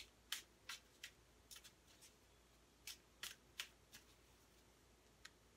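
Tarot cards being shuffled by hand: about a dozen faint, irregular card snaps and clicks as the deck is worked between the hands, most of them in the first four seconds.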